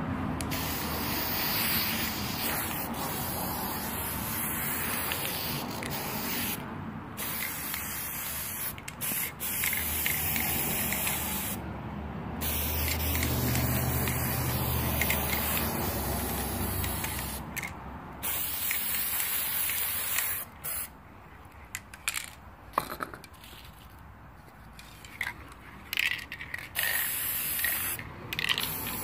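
Aerosol spray-paint can hissing as paint is sprayed onto dried hydrangea heads: long sprays broken by brief pauses, then shorter, stop-start spurts in the last third.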